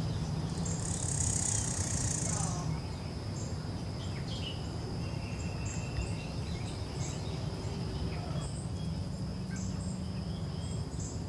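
Outdoor ambience of a steady insect drone with short bird chirps repeating through it, over a low background hum.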